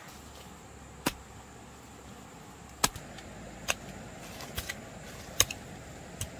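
Hand hoe chopping into dry soil: about six sharp strikes of the blade at uneven intervals.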